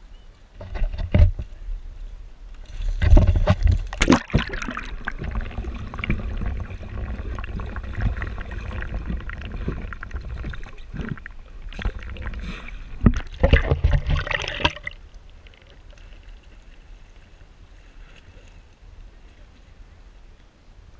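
Kayak capsize: a loud splash about three seconds in, then about ten seconds of rushing, bubbling water heard from underwater. It cuts off suddenly as the camera comes back above the surface, leaving faint water lapping.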